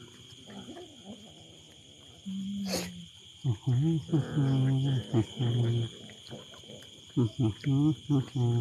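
Cats growling low while they eat, in several drawn-out, wavering spells starting about two seconds in, over crickets chirring steadily.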